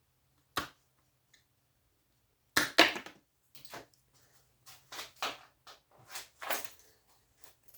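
Irregular knocks and clatters of small scrap pieces being handled and dropped while electronics are pulled apart for their copper. One knock comes about half a second in, the loudest cluster about two and a half seconds in, then a string of lighter clatters.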